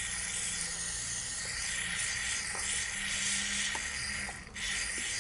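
Aerosol carburetor cleaner (KURE) sprayed through its thin extension straw into a carburetor float chamber to dissolve hardened deposits: a steady hiss that stops briefly about four and a half seconds in, then sprays again.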